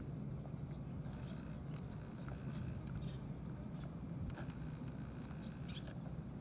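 A cat eating from a shallow plastic tray, giving scattered faint, irregular clicks, over a steady low rumble.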